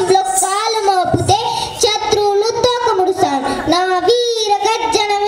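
A young girl singing a verse solo into a handheld microphone, in long held notes with a wavering pitch and short breaks between phrases.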